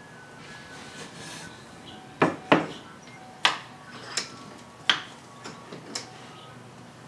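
About half a dozen sharp wooden knocks and clacks spread over a few seconds, the loudest near the middle. They come as glued-up boards are knocked together and a bar clamp is fitted to laminate a seat blank.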